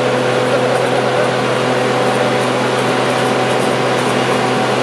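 Boat travel lift running steadily with a constant machine hum and several held tones, hoisting a sailboat in its slings.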